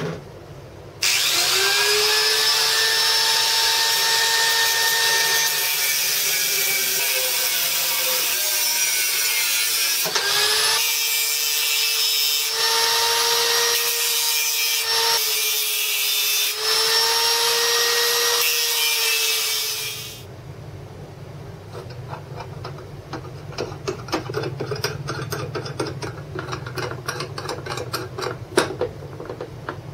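Angle grinder with a cut-off disc spinning up about a second in and cutting steel threaded rod with a steady high whine. It stops briefly halfway through, spins up again and runs down after about twenty seconds. Then light metallic clicks and rattles follow as the cut rods are handled.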